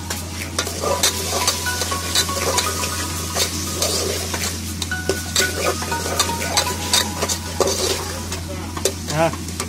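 A steel spoon stirring and scraping a masala of tomatoes, chilli powder and spices frying in oil in an aluminium pot: steady sizzling with many quick clinks and scrapes of the spoon on the pot. A steady low hum runs underneath.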